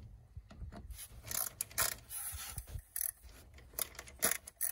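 Hand screwdriver tightening the Phillips screws that hold a mass airflow sensor into its plastic air-intake housing, giving a series of short, irregular clicks and scrapes.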